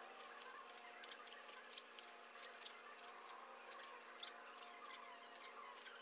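Kitchen knife chopping green onions on a cutting board: a run of light, quick taps, a few a second.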